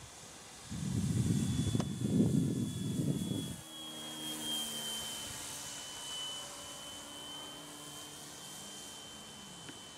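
Electric model plane's motor and propeller whining as one thin, steady high tone that dips slightly in pitch about four to five seconds in as it passes. A loud low rumble covers the first few seconds and stops suddenly at about three and a half seconds.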